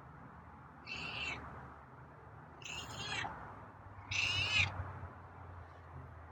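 A cat meowing three times, short high-pitched meows about a second and a half apart.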